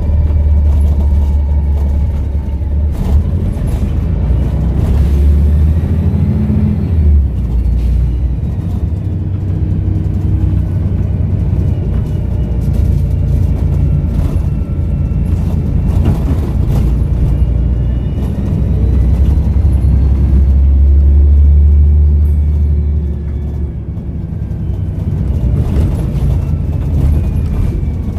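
Volvo B7RLE bus's six-cylinder diesel engine running under way through its Voith automatic gearbox: a heavy rumble that swells and eases as the bus pulls and slows, with a thin turbo whistle gliding up and down above it.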